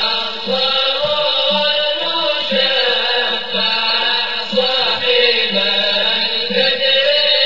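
Chanted religious vocal music, a devotional Islamic chant with held, layered voices over a low beat about once a second.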